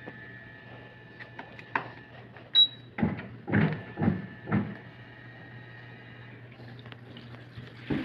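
Top-loading washing machine: a short high electronic beep from its control panel, then a handful of plastic clunks and knocks as the machine is handled, over a steady low hum.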